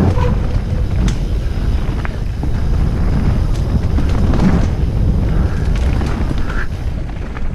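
Wind buffeting a helmet-mounted GoPro Session 5's microphone during a fast mountain bike descent on a dirt trail: a steady low rumble, with scattered clicks and rattles.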